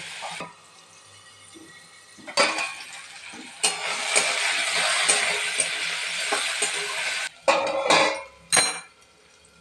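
Potato cubes sizzling in oil in a metal kadai while a metal spatula scrapes and stirs them, from about two seconds in. Near the end a steel plate is set on the kadai as a lid with a few ringing clinks, and the sizzling turns quiet.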